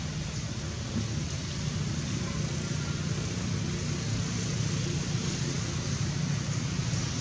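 Steady outdoor background noise: an even low rumble with a hiss over it, with no distinct event standing out.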